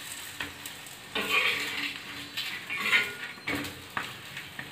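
Perforated metal spatula pressing and scraping a stuffed roti on a tawa, clinking against the griddle in several separate strokes.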